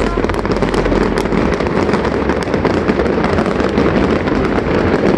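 Fireworks display going off in a dense, continuous barrage of bangs and crackling, with no break.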